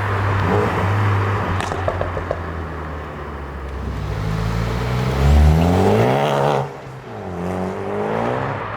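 Ford Focus ST Mk3.5 engine through a non-resonated Milltek exhaust being revved: the pitch climbs for a few seconds, cuts off sharply on lifting off, then falls back. A single sharp exhaust crack sounds about one and a half seconds in.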